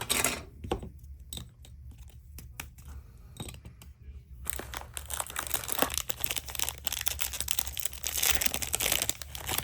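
Scattered light clicks and taps, then from about four and a half seconds in a trading-card pack's plastic cello wrapper being torn open and crinkled, a dense crackling that carries on to the end.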